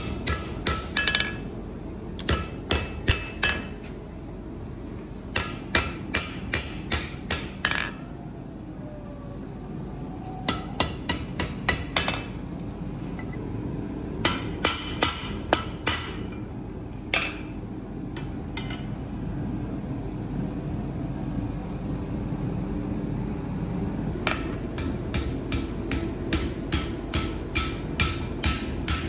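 Blacksmith's hand hammer striking red-hot steel bar stock on an anvil, in clusters of several quick blows with short pauses between, then a steady run of about three blows a second over the last few seconds. A steady low rumble sits underneath.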